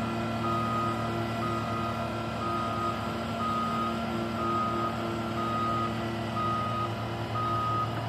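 Caterpillar compact track loader reversing: its backup alarm beeps about once a second over the steady running of its diesel engine.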